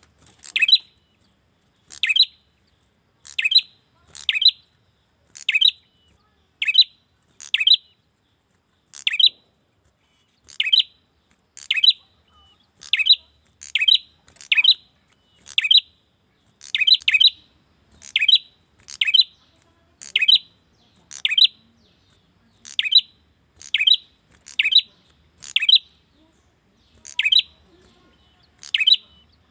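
Male prenjak (prinia) calling for a female: a short, sharp chirp repeated about once a second, now and then two in quick succession.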